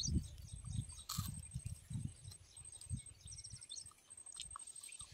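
Wind buffeting the microphone in low, uneven gusts, with small birds chirping now and then. A high thin tone pulses on and off at even spacing behind them, and a single sharp click comes about a second in.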